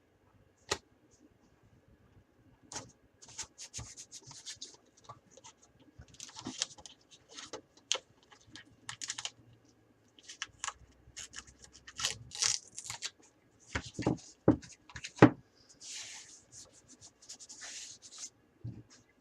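Tape being pulled off a roll in short ripping bursts and torn, mixed with irregular clicks and taps as it is pressed onto a computer case, with a few sharper knocks after the middle.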